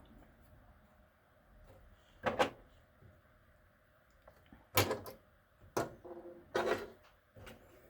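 About four short clicks and knocks spread over several seconds, from small traditional pocket knives being handled and set down.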